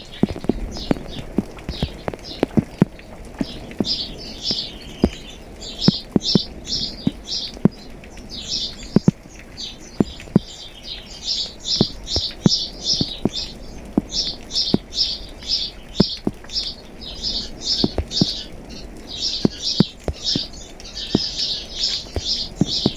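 Rain falling, with large drops landing in irregular sharp taps. A songbird chirps in fast runs of short high notes, roughly three a second, starting a few seconds in.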